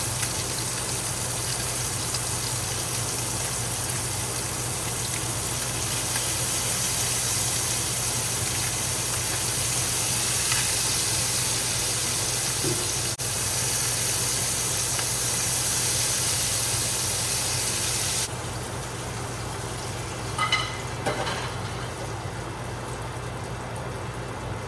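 Hybrid striped bass fillets sizzling in butter and sauce in a frying pan: a steady frying hiss over a low hum. The hiss drops away suddenly about eighteen seconds in, and a short, sharper sound comes a couple of seconds later.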